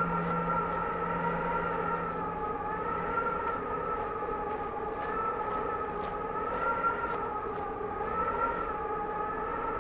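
Cold winter wind howling in steady, slowly wavering whistling tones. The low hum of a struck Japanese temple bell dies away over the first couple of seconds. Faint footsteps tap at irregular intervals.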